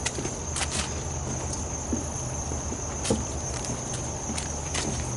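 Steady high-pitched chorus of insects droning without a break, with a few scattered footsteps on the wooden boardwalk.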